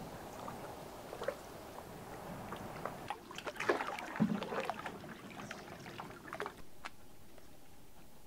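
Water splashing and trickling around a canoe as it is paddled, with a cluster of small splashes and clicks about three to five seconds in.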